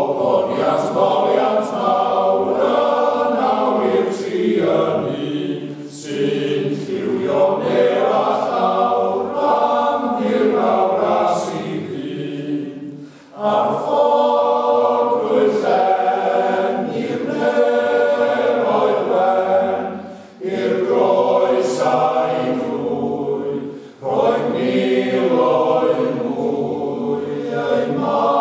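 A men's party singing a Welsh plygain carol unaccompanied, in parts, with short pauses for breath between phrases about 13, 20 and 24 seconds in.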